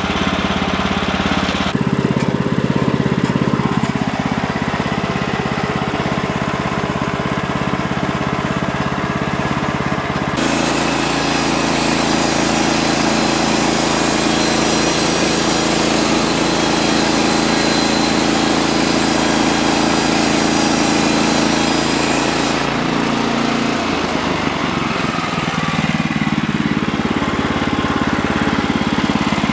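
Portable band sawmill with its engine running steadily. For about twelve seconds in the middle, the band blade cuts through an incense cedar log, adding a bright, hissing cutting noise over the engine.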